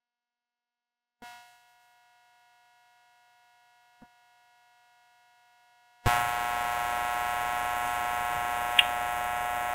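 Near silence with a faint steady tone that starts about a second in. About six seconds in, a steady electrical hum with many even overtones cuts in abruptly and holds.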